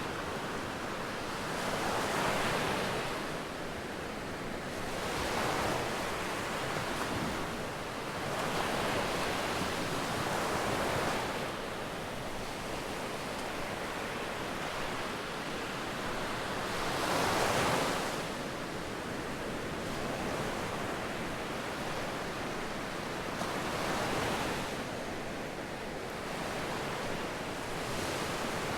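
Sea waves breaking and washing up on the beach, the surf swelling and easing every few seconds, loudest about two-thirds of the way through.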